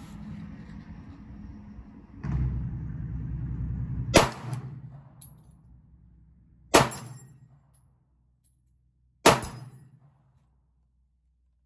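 Three shots from a Glock 43x 9mm pistol, about two and a half seconds apart, each trailing off over about a second.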